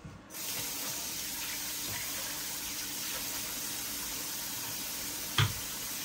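Kitchen faucet turned on about half a second in and running steadily into the sink, with a single knock near the end.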